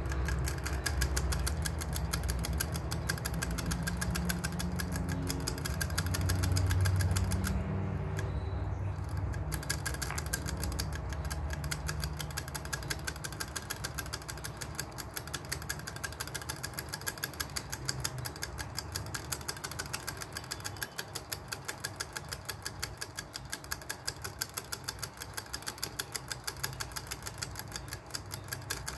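Pet hedgehog drinking from a hanging water bottle's metal ball-tip spout: an even, rapid run of clicks as its tongue laps at the nozzle. A low rumble lies under the clicks for about the first twelve seconds.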